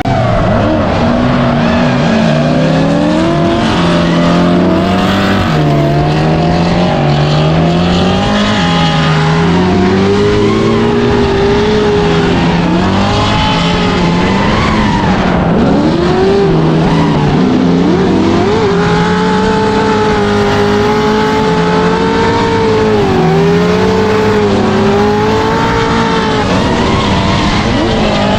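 Drift cars' engines revving up and down hard and continuously, more than one at a time, with some tyre squeal.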